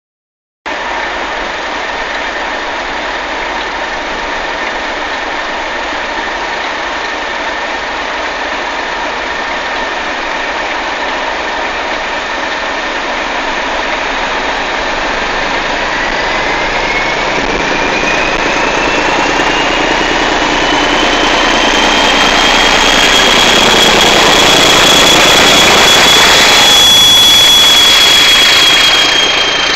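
Diesel locomotive engine idling steadily, then working harder as the train moves off. A whine rises in pitch over several seconds and the sound grows louder as the coaches roll past close by, easing slightly near the end.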